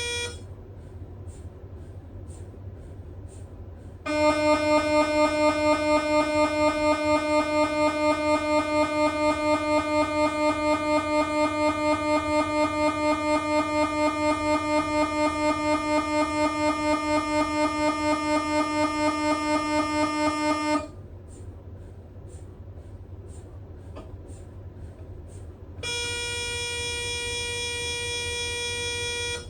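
Siemens Magnetom Spectra MRI scanner's gradient coils sounding through imaging sequences: a loud tone pulsing about four times a second for some seventeen seconds, then, after a few seconds of faint ticking, a steady higher tone near the end. A low hum runs underneath throughout.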